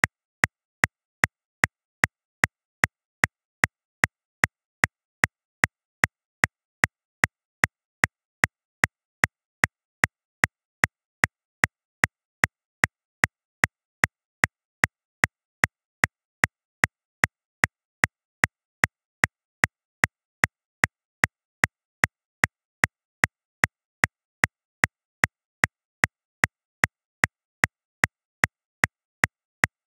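Metronome clicking steadily at 150 beats per minute, about two and a half short, sharp clicks a second.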